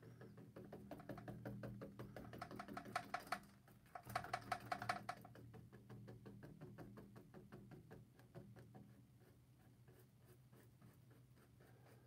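Paintbrush dabbing and scrubbing on a stretched canvas while painting clouds: a rapid patter of faint taps, busiest about three seconds in and again from four to five seconds, thinning out later, over a steady low hum.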